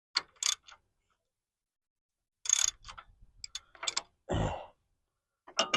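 Wrench clicking and clinking against metal while working loose the power steering hose fitting: a few sharp clicks near the start and a quicker run of clicks about halfway through, followed by a short heavy exhale.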